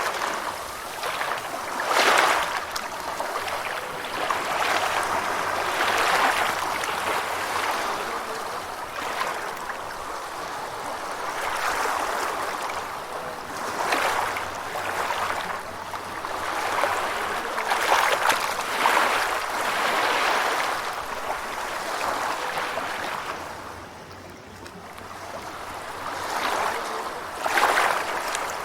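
Gentle ocean waves washing in, each wash swelling and fading every few seconds, with a brief quieter lull a little past the middle.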